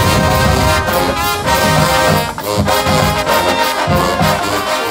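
Marching band brass section, trombones and trumpets, playing loud music in short, accented notes.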